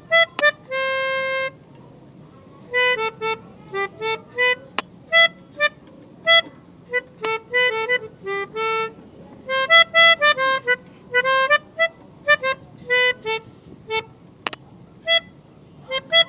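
Pianika (melodica) playing a bus-horn 'telolet' tune in quick runs of short, separate notes, with a few longer held notes. A few sharp clicks come between the phrases.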